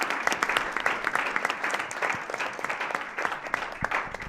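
Applause from an audience and panel: dense clapping that thins out near the end.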